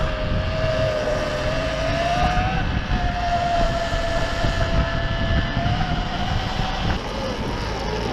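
Sur-Ron Ultra Bee electric dirt bike riding along: the electric motor gives a steady whine that drifts up and down in pitch with speed, over a low rumble of wind and tyres.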